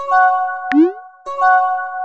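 Chat-app message sound effects: a bell-like chime of several steady notes rings at the start and again just past a second in, with a short rising bloop between them.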